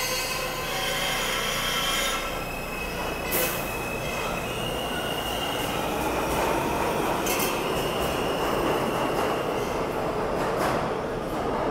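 R160-series New York City subway train moving through the station: a steady rumble of wheels on rail with high wheel squeal. Several high steady tones sound in the first two seconds, and there are sharp clicks about three and a half and seven seconds in.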